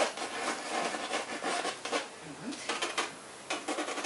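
Pencil scratching on paper mounted on a drawing board, in quick, irregular short strokes that come fastest about three seconds in.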